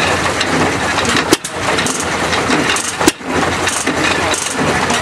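Hit-and-miss stationary engine firing with a sharp bang about once every second and a half or so, twice, each bang followed by a brief lull as it coasts, over steady machinery noise.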